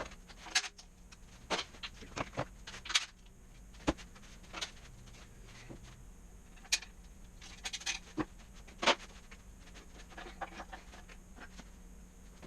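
Irregular metallic clicks and clinks of 4L80E automatic transmission internals being handled and set down during a teardown, a dozen or so sharp strikes with the loudest about three and nine seconds in.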